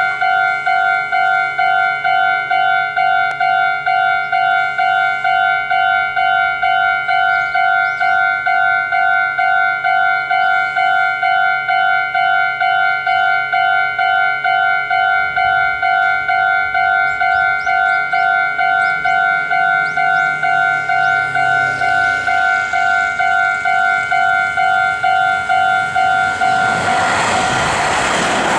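Japanese level-crossing warning bell ringing steadily, a two-tone ding about twice a second. A Meitetsu N3000-series electric train approaches, and its running noise swells near the end and drowns out the bell.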